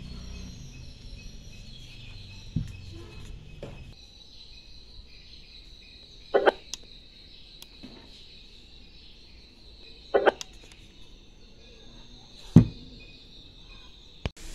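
Plastic casing of an imitation JBL Bluetooth speaker knocking as it is handled, turned over and set down on a cloth: five short sharp knocks, the loudest about three quarters of the way through. A steady high chirring of insects runs underneath.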